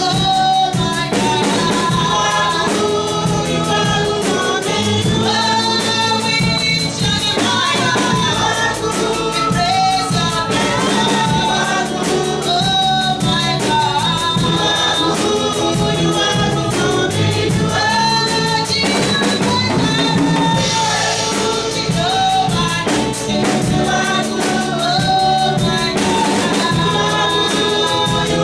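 Gospel choir singing with a band accompaniment that includes drums.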